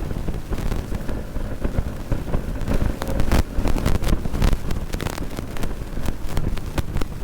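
Bajaj Pulsar NS200's single-cylinder engine running while the bike is ridden, heavily masked by wind buffeting on the microphone, with frequent sharp rattles and gusts.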